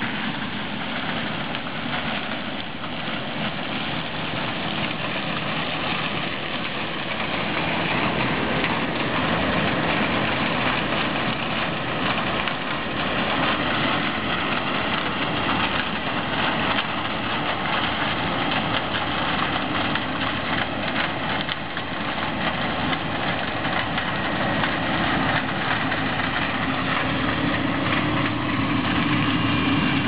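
Claas Lexion 450 combine harvester running steadily while harvesting maize: engine and threshing machinery at work, a dense, even sound that holds throughout.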